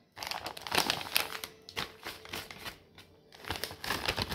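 Crinkling and scraping as powdered sugar is scooped from its bag into a measuring cup.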